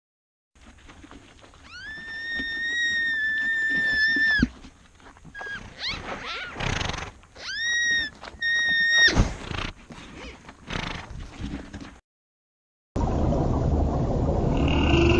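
An animal calling: one long, high, steady call that lasts about three seconds, then a few shorter calls at the same pitch. The clip cuts off abruptly near the end and a steady noisy background follows.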